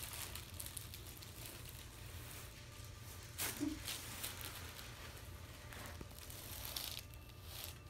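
Quiet treatment room: a steady low hum with a few soft clicks and rustles, and a brief murmur about three and a half seconds in.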